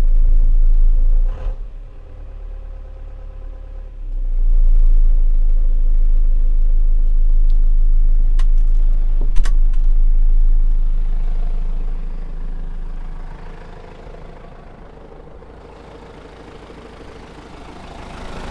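John Deere 6320 tractor's diesel engine running with a heavy low rumble, dipping for a couple of seconds early on, then loud again before easing off over the last few seconds; a couple of sharp clicks in the middle.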